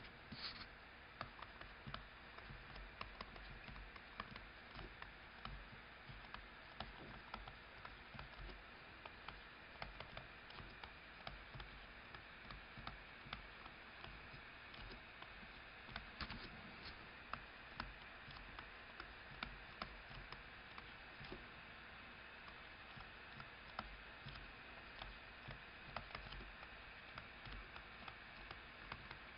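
Faint, irregular tapping and clicking of a stylus on a writing tablet as words are handwritten, over a steady low hiss.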